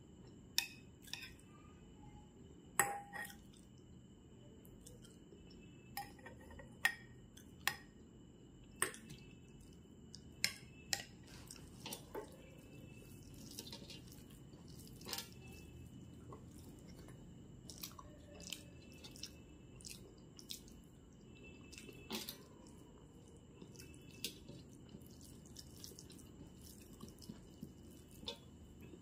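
Close-miked eating by hand: fingers mixing rice on a metal plate and chewing, heard as scattered sharp clicks and smacks, about a dozen in all. A faint steady high whine runs underneath.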